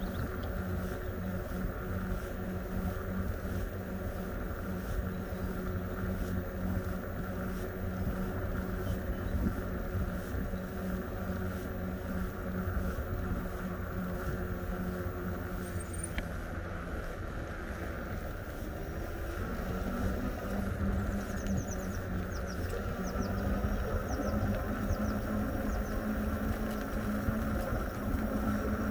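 Electric bike's motor humming steadily while riding, over a low rumble of wind and road; the hum rises slightly in pitch about twenty seconds in.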